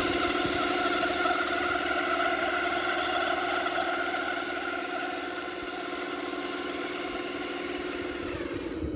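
1/10 scale RC Peterbilt cab-over semi truck running with a steady engine-like drone that holds one pitch and slowly fades out near the end.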